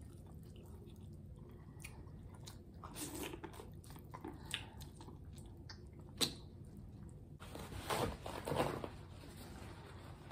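Close-miked chewing and biting of seafood-boil food, with small wet mouth clicks. There is a sharp bite into a piece of corn on the cob about six seconds in, then a paper towel rustles as it is wiped across the mouth near the end.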